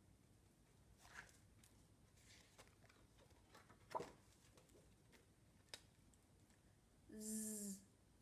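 Mostly near-silent room tone with a few faint taps of cards being handled, the sharpest about four seconds in. Near the end a woman's voice makes a buzzing 'zzz', the phonics sound for the letter z.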